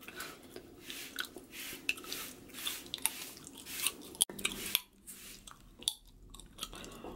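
Chewing gum close to the microphone: irregular wet smacks and clicks, a few a second, over a faint steady hum that stops at a cut about four seconds in.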